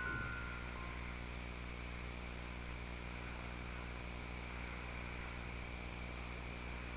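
A steady low hum with a faint even hiss, unchanging throughout. In the first second the last chime notes of a glockenspiel ring out and die away.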